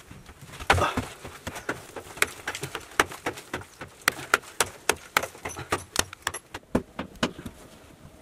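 A hand digging tool striking and breaking up clods of hard, dry earth: a quick run of sharp knocks, about three a second, with a heavier thud about a second in.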